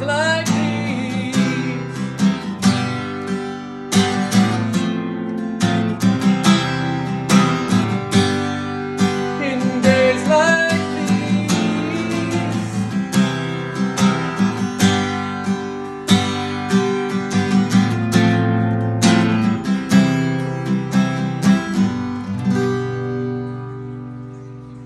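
Dreadnought acoustic guitar strummed in a steady rhythm through a song's closing instrumental passage, with no singing; near the end the last chord rings out and fades.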